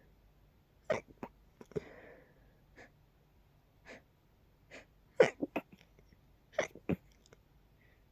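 A person's stifled sneezes, held in with the nose pinched to keep them quiet: short, sharp bursts in small clusters with softer puffs and breaths between, the loudest cluster about five seconds in.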